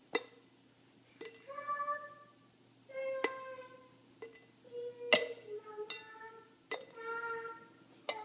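Baby striking a toy skillet with a toy spatula, giving about seven sharp clinks spaced unevenly. Between the strikes she makes drawn-out vocal sounds of her own.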